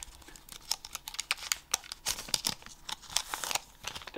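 Foil wrapper of a Pokémon trading-card booster pack crinkling and crackling as it is opened, in a quick run of sharp rustles.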